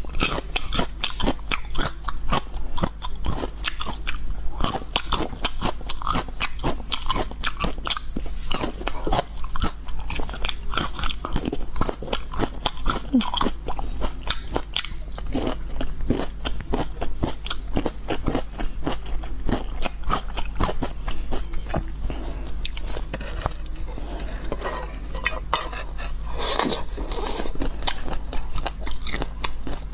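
Close-miked crunchy chewing and biting of food: a dense, continuous run of crisp crackles, with a few louder crunches near the end.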